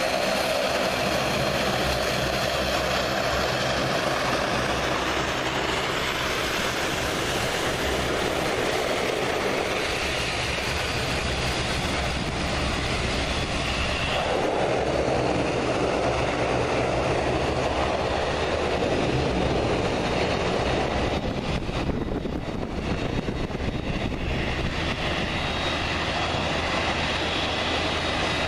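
Steady aircraft engine noise on an airport apron: the propellers of a Bombardier Dash 8 Q400 turboprop taxiing, then the jet engines of an Airbus A320neo running.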